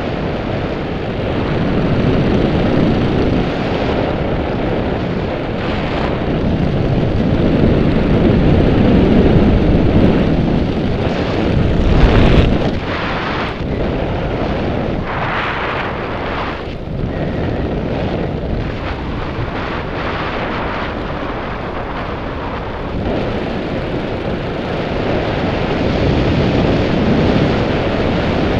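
Wind rushing over the camera microphone during a parachute descent: a continuous buffeting noise that swells and fades, loudest about twelve seconds in.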